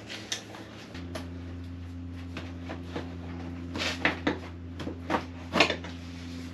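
Scattered sharp knocks and clatters of tools and motorcycle parts being handled, over a steady low hum that steps up about a second in.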